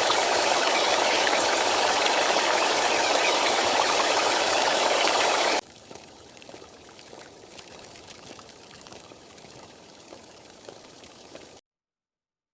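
Steady hiss of heavy rain that cuts off suddenly about five and a half seconds in, giving way to a much fainter hiss with small scattered ticks, then silence near the end.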